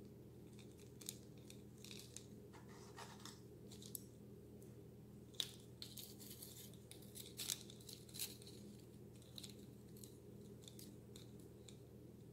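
Faint scattered clicks and rustles of hands handling a gum paste flower and wrapping thin floral wire around its stem, a little louder about halfway through, over a steady low room hum.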